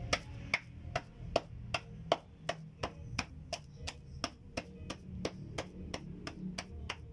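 Wet clay being beaten and patted into shape for a clay cooking stove: sharp, evenly spaced strikes, about three a second, stopping near the end.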